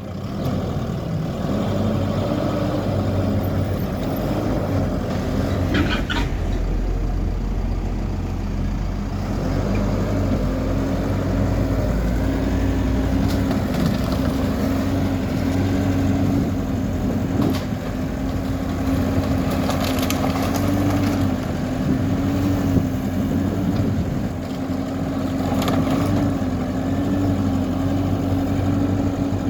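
Hidromek backhoe loader's diesel engine running steadily while working, its pitch wavering slightly as the load changes, with a few knocks and scrapes of rubble.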